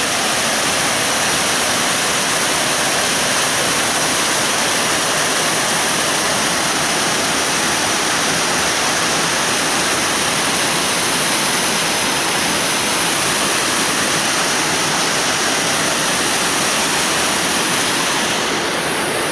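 Waterfall on the Sakhray River: a loud, steady rush of falling water with no let-up.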